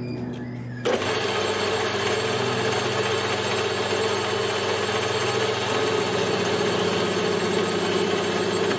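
Small metal lathe switched on about a second in and running steadily, its spindle turning a pin in the chuck while the toolbit cuts a shallow starter groove for a hacksaw blade.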